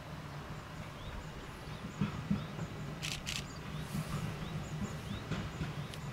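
A low steady hum from the approaching 413/455-series electric train, with small birds chirping over it. Two short, sharp hissing bursts come about three seconds in.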